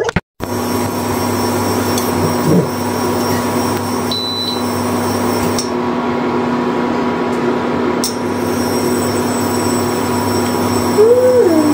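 A kitchen appliance's electric motor running with a steady hum. Near the end there is a short pitched tone that rises and then falls.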